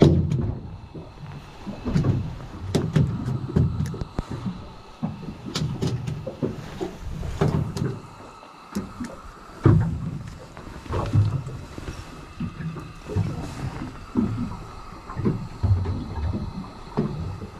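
Irregular low bumps and rumbles with many sharp clicks and knocks: hands, rod and gear moving and knocking about on a small fishing boat.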